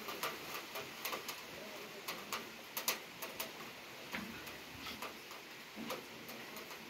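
Rain falling, with drops ticking irregularly on a hard surface, about three a second, over a steady hiss.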